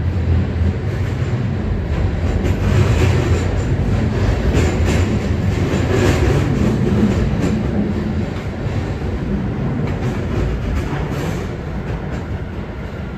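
Sendai Subway Tozai Line 2000-series linear-motor metro train running in a tunnel, heard inside the passenger car: a steady low rumble of wheels on rail with scattered rattles and clacks, easing off a little in the second half.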